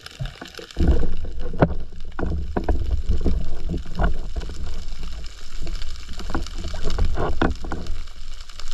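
Seawater sloshing and gurgling around an underwater camera housing at the surface, a low rumble with scattered sharp knocks and clicks as the speargun shaft, line and speared fish are handled.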